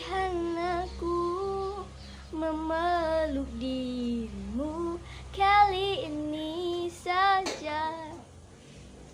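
Background music: a woman singing a slow melody in long held notes with vibrato, over a low steady accompaniment.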